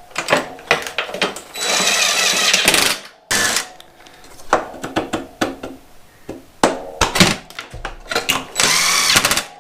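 Cordless power driver running in two bursts of about a second each, one about two seconds in and one near the end, taking out the bolts of a motorcycle's rear bar. Sharp clicks and knocks of the tool and metal parts come between the bursts.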